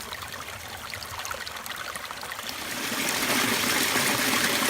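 Creek water running, growing clearly louder a little over halfway through.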